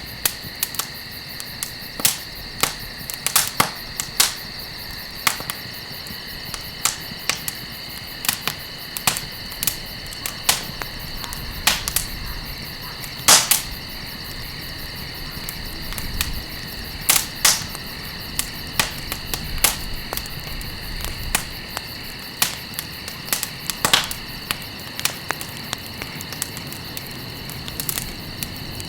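Wood campfire crackling: irregular sharp pops and snaps of burning wood, a few much louder than the rest, over a steady high-pitched drone.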